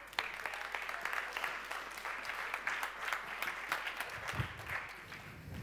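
Audience applauding, a dense patter of many hands that fades out near the end, with a couple of low thumps at the close.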